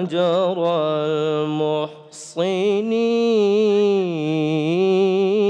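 A man reciting the Quran in the melodic tilawat style, singing the words 'ajr al-muhsinin' with long, ornamented held notes. A short break about two seconds in, then one long drawn-out phrase.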